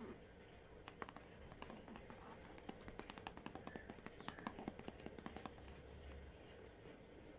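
Fingers tapping and handling a cardboard tarot deck box close to the microphone: a run of quick, faint taps and clicks from about a second in until a little past five seconds.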